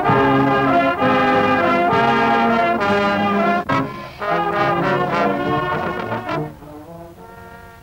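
Brass music: held notes of several brass instruments moving from chord to chord, fading down near the end.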